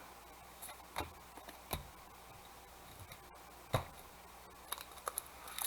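Trading cards being handled and flipped through: a few scattered soft taps and clicks, then a quick cluster of small ticks near the end, over a faint low hum.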